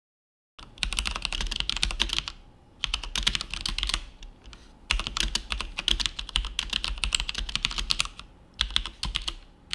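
Typing on a full-size mechanical keyboard fitted with linear Cherry MX Red switches (Asus ROG Strix Scope): fast runs of keystrokes in several bursts with brief pauses between them.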